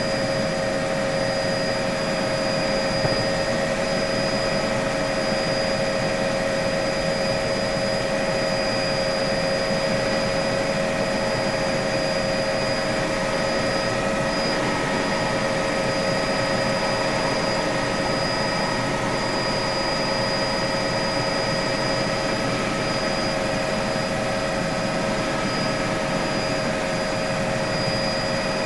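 Helicopter running steadily: an even engine rush with several high whining tones held at one pitch, unchanging throughout.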